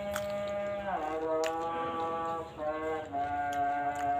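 A voice chanting in long held notes that step from pitch to pitch and slide between them, the pujian chanting from a mosque. A few sharp crunches of raw cucumber being bitten and chewed sound over it.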